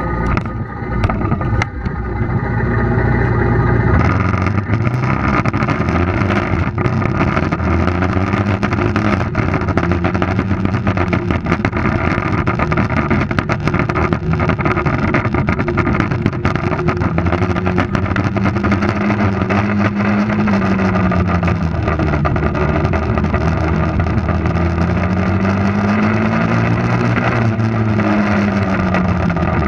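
Honda ATV engine running as the quad is ridden, its pitch rising and falling as it speeds up and slows, with wind rushing over the microphone. A few knocks near the start from a hand handling the camera on the front rack.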